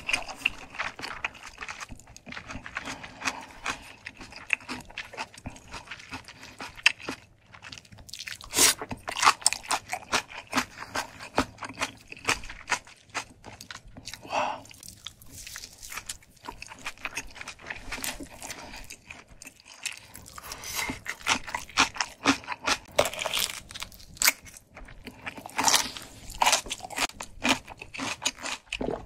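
Close-miked chewing of a mouthful of food: irregular wet mouth sounds with crunchy crackles.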